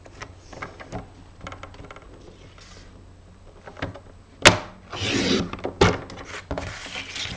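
Sheet of paper being handled and cut: soft taps and rustles, a sharp click about four and a half seconds in, then two short sliding rasps.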